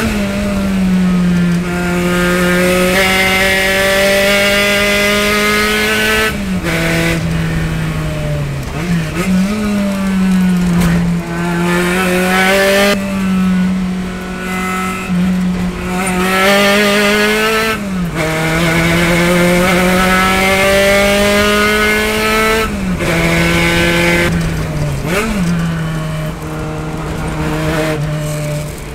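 Spec Racer Ford Gen3 race car's engine heard from the cockpit, running hard around a road course. The pitch climbs under throttle and drops sharply several times as the driver lifts, brakes and shifts for corners.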